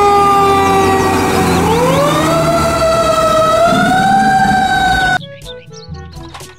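Fire engine siren sounding loudly: its pitch slides slowly down, then rises about two seconds in and holds high. It cuts off suddenly about five seconds in, leaving light background music.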